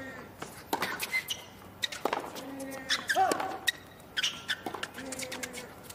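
Tennis rally on a hard court: racquets striking the ball in sharp repeated knocks, with sneakers squeaking on the court surface, most clearly about halfway through.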